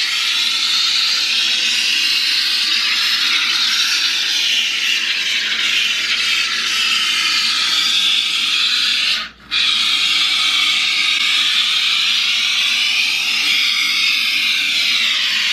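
Can of Great Stuff expanding foam spraying through its straw nozzle with a steady, loud hiss. The hiss breaks off briefly about nine seconds in, then starts again.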